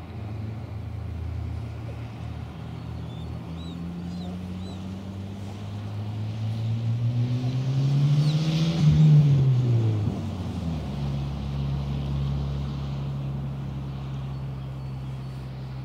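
Motor vehicle passing on a nearby road: its engine hum climbs in pitch and loudness to a peak about nine seconds in, then drops away sharply as it goes by, and a steady low engine drone carries on after.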